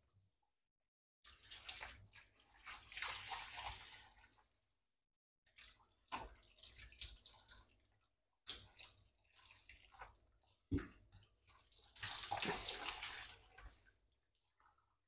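Faint spray of water from a handheld shower head running over a wet dog's coat in a grooming bath, rinsing the shampoo out. The spray comes in several stretches of a few seconds with short breaks between them, and there is a single sharp knock about two-thirds of the way through.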